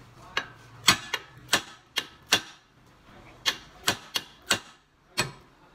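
Hammer blows on a car's steering knuckle, eleven sharp metal knocks in two bursts of six and five. The blows shock the tapered stud of the tie rod end loose from the knuckle arm.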